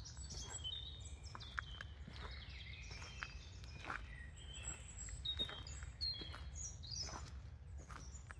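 Several small birds chirping and singing in quick short calls, with irregular footsteps and a steady low rumble underneath.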